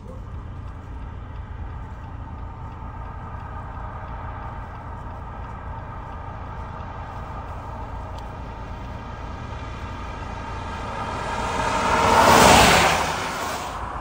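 Steady engine and road rumble of a car on the move. About twelve seconds in, a loud rush swells and fades as another vehicle passes.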